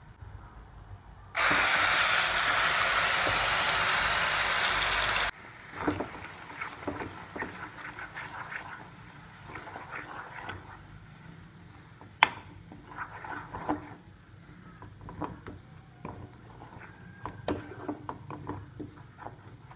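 Coconut mixture sizzling loudly in a hot wok for about four seconds, the hiss stopping abruptly. Then a wooden spatula stirs and scrapes the thick coconut halwa mixture around the granite-coated pan, giving scattered clicks and scrapes.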